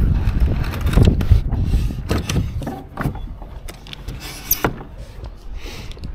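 Heavy wooden plank door on strap hinges being swung shut by hand: a run of wooden thumps and knocks, loudest in the first second and a half, with a brief high squeak about four and a half seconds in.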